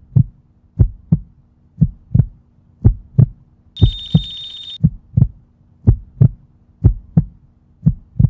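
Heartbeat sound effect: paired low thumps, lub-dub, about once a second over a steady low hum. About four seconds in, a high electronic tone with hiss sounds for about a second.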